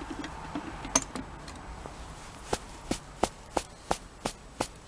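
A steady series of sharp taps, about three a second, starting a couple of seconds in, after a few scattered knocks: a vacuum cleaner's filter or part being knocked against a hard surface to shake the dust out.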